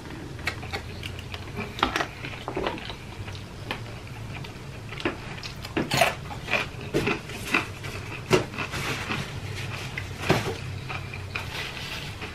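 A person chewing and eating close to the microphone: scattered wet clicks and smacks over a low steady hum.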